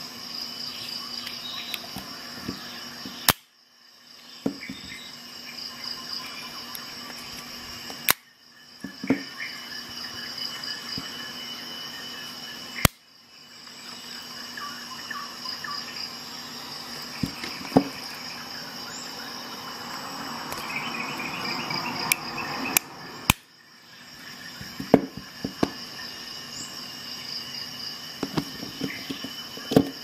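Ruike Criterion M61-G multi-tool's implements being opened and closed, giving many small metallic clicks and four loud sharp snaps. Crickets chirp steadily underneath.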